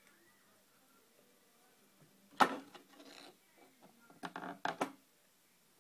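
Handling noise at a fly-tying bench: a sharp knock about two and a half seconds in, with a brief rustle after it, then a quick run of three clicks and knocks near the end.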